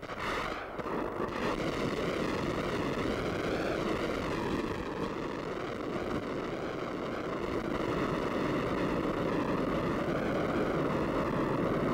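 Rocket motor of an RS-22 (SS-24 Scalpel) ballistic missile firing at launch and during the climb: a steady rushing roar with a wavering, phasing quality. It starts abruptly at ignition and grows slightly louder.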